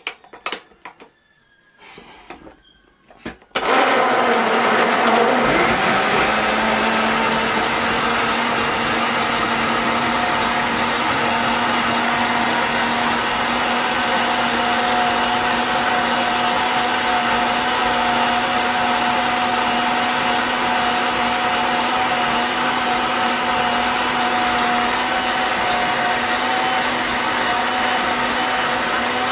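A few clicks from the dial of a Tefal Blendforce countertop blender, then its motor starts abruptly about three and a half seconds in. It runs steadily, blending chunks of fruit and juice into a smoothie, its pitch settling within the first few seconds.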